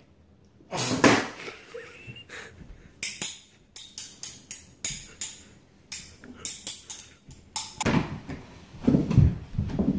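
Chopsticks tapping a small drinking glass again and again, used as a bell: a quick run of sharp, ringing clinks, about three a second. Near the end, lower thumps and rustling take over.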